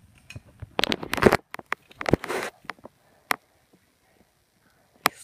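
Close rustling of fabric and bedding with scattered sharp clicks and taps from hands at work, bunched about one to two and a half seconds in, then a few single clicks.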